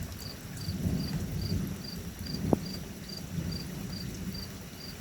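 Distant thunder rolls as a low rumble, swelling about a second in and fading over the next two seconds. A cricket chirps steadily, a little over twice a second, throughout.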